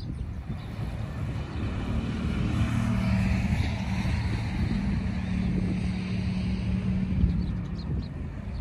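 The drone of a passing engine swells from about two seconds in and eases off near the end, over wind rumble on the microphone.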